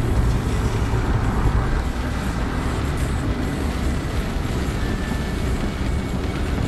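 Steady rumble of a car driving on a wet road, heard from inside the cabin: engine and road noise with tyres running over rain-soaked tarmac.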